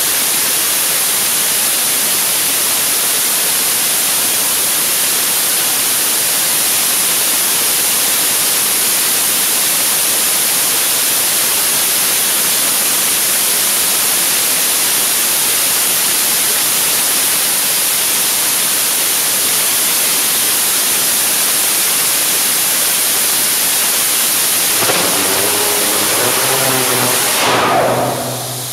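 75-tonne kerosene/liquid-oxygen rocket engine running at full thrust in a static hot-fire test, a steady, loud rushing noise. Near the end it cuts off as the engine shuts down, with a few pitched tones coming through in its last seconds.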